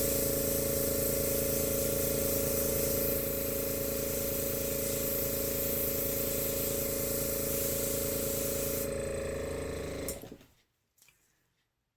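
An airbrush compressor running with a fast pulse, with the hiss of air from the airbrush blowing acrylic paint across the canvas. The air hiss stops about nine seconds in, and the compressor cuts off about a second later.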